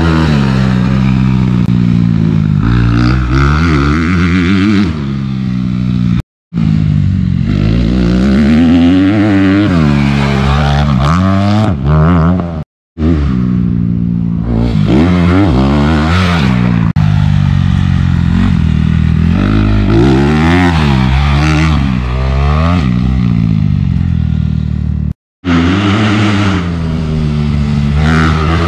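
Honda CRF250R four-stroke motocross bike engine revving up and down through the gears as it is ridden round a dirt track, its pitch rising and falling constantly. The sound cuts out briefly three times.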